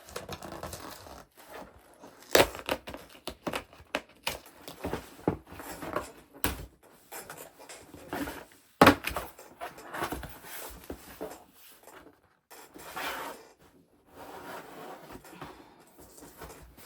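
A damaged cardboard parcel being handled and opened: rustling and crinkling with many scattered clicks and knocks, two of them sharper and louder than the rest.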